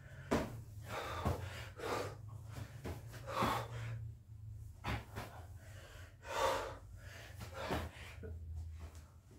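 A man panting and gasping hard, one heavy breath about every second, while doing burpees. A few sharp thuds from his feet and hands landing on the rug come in between.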